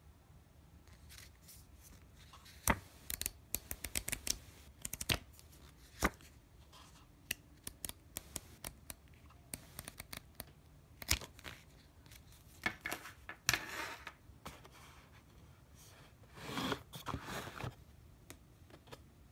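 Pages of a paper quick start booklet being handled and flipped: a string of sharp paper clicks and snaps, then a few longer rustling swishes in the last third.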